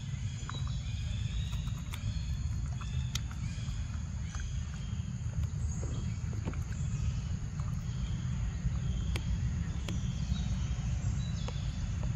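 Macaque chewing and biting into a ripe mango: scattered short wet clicks and smacks over a steady low rumble, with faint high calls in the background.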